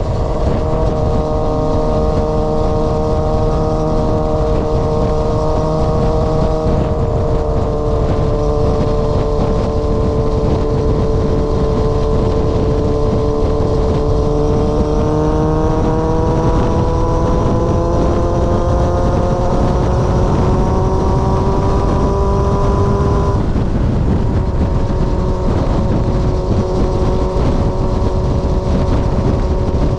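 Straight-piped Yamaha XJR400 inline-four engine running under way, a steady exhaust note whose pitch climbs slowly from about halfway through, then drops suddenly about three-quarters of the way in and settles lower.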